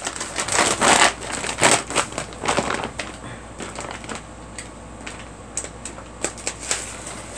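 Empty dog food bags crinkling and rustling as they are handled and shifted, in dense bursts for the first few seconds and then as scattered crackles.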